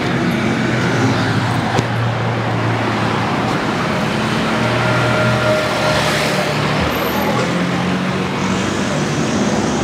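Road traffic: motor vehicle engines running steadily, a continuous noise with shifting low engine tones.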